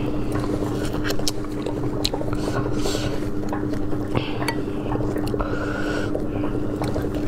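Plastic-gloved hands tearing apart saucy braised pork: wet, sticky squishing and pulling, with many small clicks and crackles.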